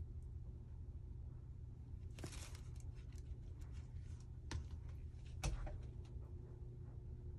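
Soft brush strokes working epoxy resin in a silicone mold: a short swish about two seconds in and a few light clicks and knocks, the sharpest about five and a half seconds in, over a steady low room hum.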